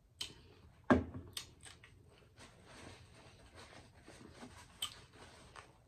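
A sharp knock about a second in as a plastic cup of iced drink is set down on the wooden table, then close-miked chewing with a few small clicks.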